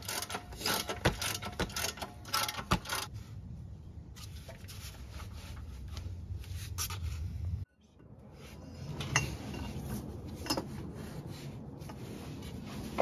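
Metal tools and parts clinking and scraping during work under a car. A quick run of sharp clicks in the first few seconds gives way to low rubbing and handling noise. It cuts out suddenly about eight seconds in, then comes back with a few single clinks.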